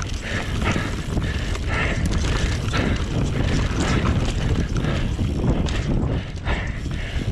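Enduro mountain bike descending a dirt trail at speed: tyres rumbling over the ground with heavy wind buffeting on the microphone, and frequent short knocks and rattles from the bike over bumps.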